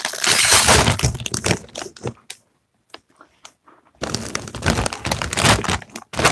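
A plastic chip bag crinkling as it is pulled open and handled. It comes in two bursts with a gap of about two seconds between them.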